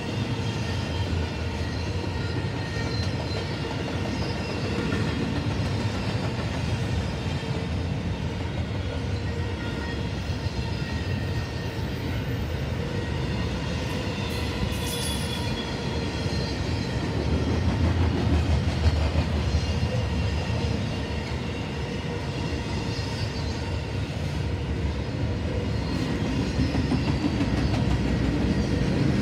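Norfolk Southern double-stack intermodal freight train rolling past: a steady rumble of container cars' wheels on the rails. It grows a little louder about two-thirds of the way through and again near the end.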